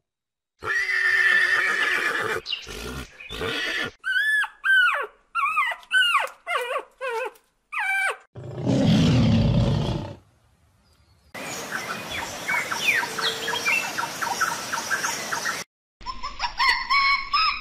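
A run of different animal calls cut one after another: a pitched call, a few clicks, a series of short calls that fall in pitch, then a low, rough call. After a short gap comes a long stretch of rapid ticking, and near the end a chorus of pitched calls.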